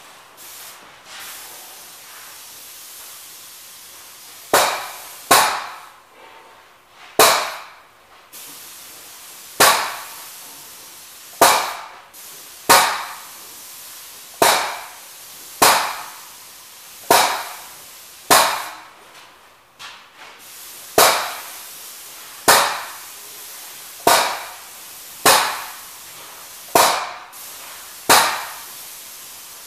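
Industrial paint spray gun firing primer in short passes: a run of loud hissing bursts, each starting sharply and fading within about a second, repeating roughly every second or so from about four seconds in, over a steady background hiss.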